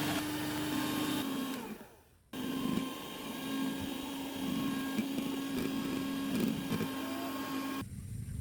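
Electric hand mixer running steadily, beating batter or egg whites. It is switched off briefly about two seconds in, then runs again until shortly before the end.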